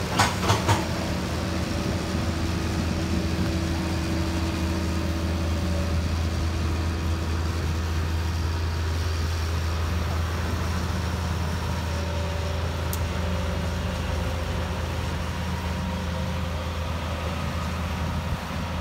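Hitachi ZAXIS 200 crawler excavator's diesel engine running steadily at an even pitch, with a few sharp knocks in the first second.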